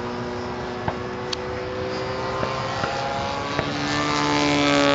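Nitro glow engine of a radio-controlled Christen Eagle biplane running steadily in flight, its note shifting and growing louder near the end as the plane comes closer.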